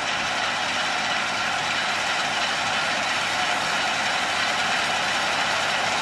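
Massey Ferguson 510 combine running steadily while harvesting soybeans, its engine and the header and threshing machinery making an even mechanical noise.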